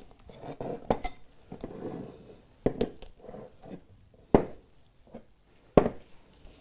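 Stemmed glass dessert coupes being set down on a countertop one after another: four sharp clinks about a second and a half apart, with faint handling noise between them.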